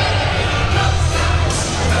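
Parade music with a heavy, steady bass line playing loudly, with a brief rise of hiss about one and a half seconds in.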